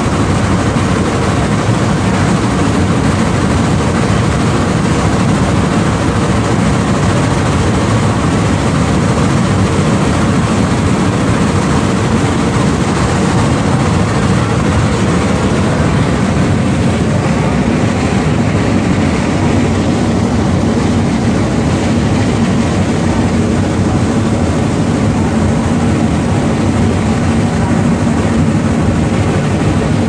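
Shay No. 11, a geared steam locomotive, running under steam with its exhaust and running gear making a loud, steady noise close up.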